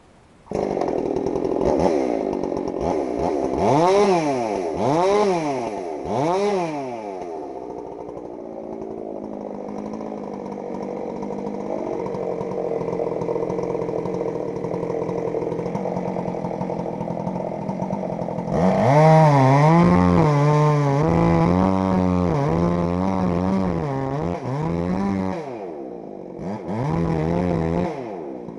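Chainsaw starting up and being revved up and down a few times, then running steadily for about ten seconds. After that the throttle is worked in quick pulses, about two a second, with two short drops near the end.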